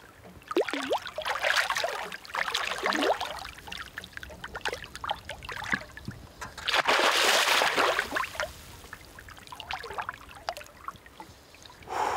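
Hooked pike thrashing and splashing at the water's surface as it is played on a spinning rod, in irregular bouts, with the longest and loudest splashing about seven seconds in as it shakes its head clear of the water.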